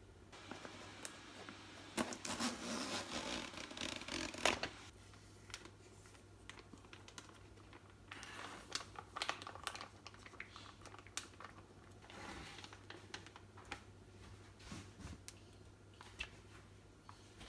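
Food-prep handling at a plastic cutting board: a few seconds of loud rustling and crinkling early on, then the crinkle of a plastic zip-top bag being opened and scattered clicks of metal tongs lifting a piece of chicken out onto the board.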